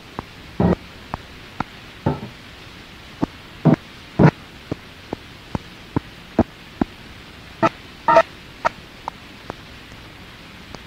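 Steady cassette tape hiss with about twenty irregular sharp clicks and pops, a few of them louder thumps, a little under a second, four seconds and eight seconds in. No music is heard.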